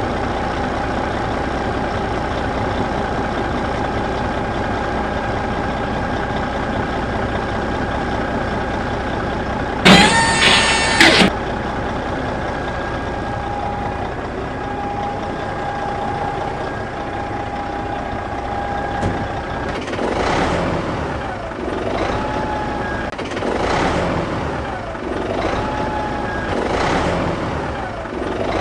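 Farm tractor engine running steadily, with a loud, brief blaring sound about ten seconds in. From about twenty seconds on the engine swells and eases again roughly every three seconds.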